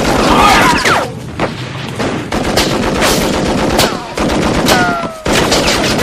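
Battle gunfire: rapid rifle and machine-gun fire with many overlapping shots, packed closely and without a break, and a short falling tone about five seconds in.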